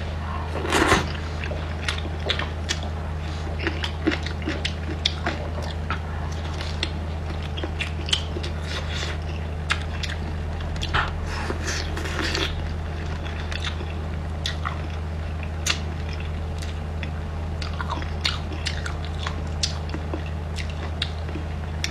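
Close-miked eating sounds: a person biting and chewing food, with many small sharp wet clicks and crunches, over a steady low hum.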